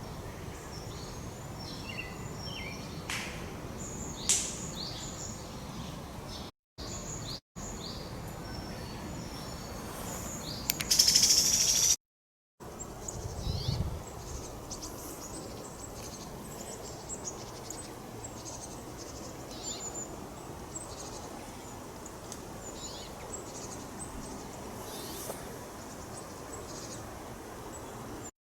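Wild birds calling outdoors: many short, high chirps and call notes, some sliding downward, over a steady background hiss. A louder cluster of calls comes near the middle, and the sound cuts to silence briefly a few times.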